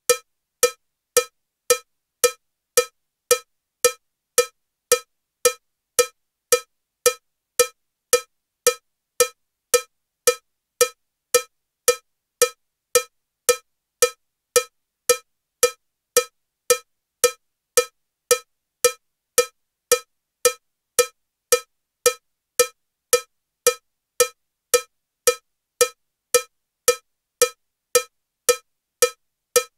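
Metronome ticking a cowbell sound at 112 beats per minute. Each beat is a short, bright strike, and the beats come evenly just under two a second.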